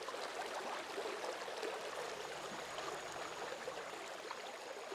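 Steady babbling of running water, like a small stream, with a fine trickling texture.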